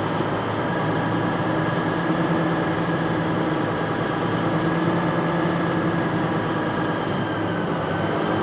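Vehicle engine running steadily as it drives slowly, an even hum with a faint higher whine held over it.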